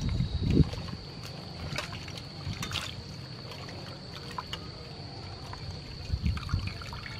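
Water sloshing and splashing in a stainless steel bowl as hands rinse live river prawns, with louder swishes just after the start and again about six seconds in, when the prawns are lifted out dripping.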